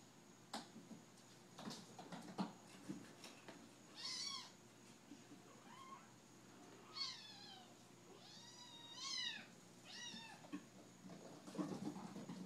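Young kittens mewing: about five short, high-pitched mews in the middle stretch, several falling in pitch at the end. Small paws patter and scuffle on a wooden floor near the start and again near the end.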